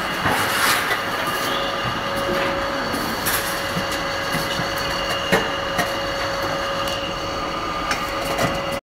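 Steady din of meat-processing plant machinery, with steady tones and scattered sharp clicks and knocks, the loudest a little after five seconds in. The sound cuts out briefly just before the end.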